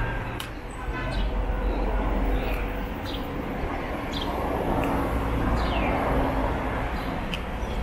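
Street ambience: a steady low hum with small birds chirping over it, short falling calls repeated every second or so.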